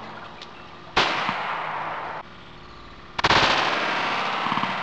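Taurus PT-92 pistol firing a 9mm +P+ round, a sharp shot about a second in that rings off into the distance. A second loud blast follows about three seconds in, with a long, rough, wavering tail.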